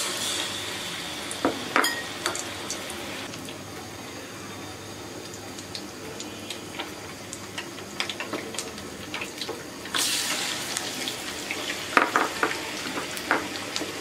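Batter-coated chicken leg pieces deep-frying in hot oil in an aluminium pot: a steady sizzle with scattered crackles and pops. About ten seconds in, a second battered piece goes into the oil and the sizzle jumps to a loud hiss, then slowly settles.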